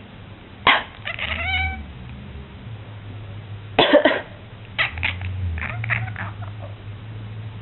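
Domestic cat coughing: a sharp hack under a second in, followed by a short pitched tone, then a run of hacks from about four to six seconds.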